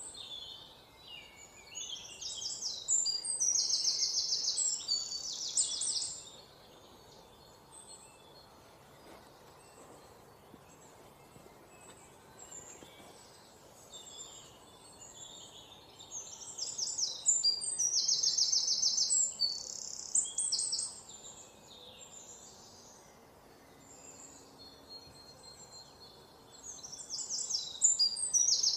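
Forest birds singing: a loud, rapid trilling song phrase several seconds long comes three times, about every twelve seconds, with softer chirps from other birds in between over a faint steady hiss.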